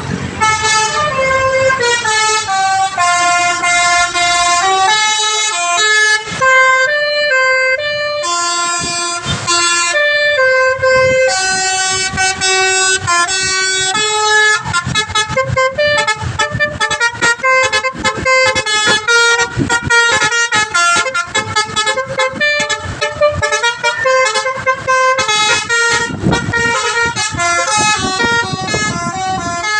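Indonesian 'telolet' multi-tone bus horn, driven by an electronic controller, playing a melody in stepped notes with a melodica-like voice. The notes are held in the first half and come quickly in short bursts from about halfway through.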